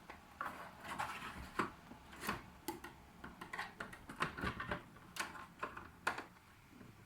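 Knife working along the glued edge of a TV's LCD panel to free it: irregular small scrapes and clicks.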